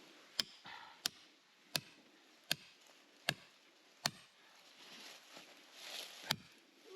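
Sharp, evenly spaced hammer blows driving a tool into stone: six strikes about 0.7 s apart, a short pause with faint rustling, then one more strike near the end.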